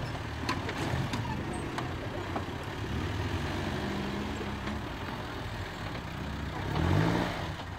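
Rayton Fissore Magnum 4x4's engine working under load as it crawls up a steep dirt slope off-road, with a few sharp clicks in the first two seconds and a short rising rev about seven seconds in.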